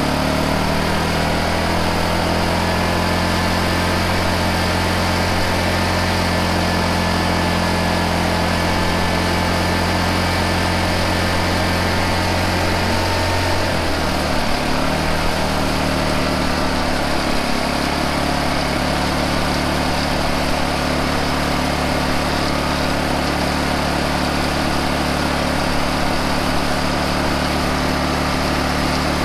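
Honda EU2000i inverter generator's single-cylinder four-stroke engine running fast and steady, held at high speed for a stator voltage test. About 14 seconds in its pitch drops a little as the engine speed is turned down, and it then runs steadily at the lower speed.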